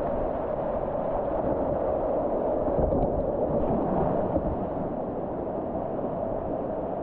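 Steady rush of river water through rapids, an even noise with no distinct events.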